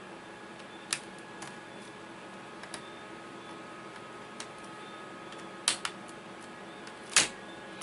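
Small, scattered clicks and taps of a screwdriver and tiny screws on a laptop's metal keyboard plate as the screws are put back in, over a steady background hum. The clicks come singly at uneven gaps, with a close pair a little before the end and the loudest one near the end.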